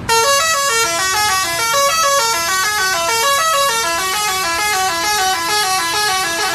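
Basuri v3 telolet bus horn, a multi-trumpet musical horn, playing a fast dance tune of short notes that step up and down, about four a second. It starts suddenly and loudly.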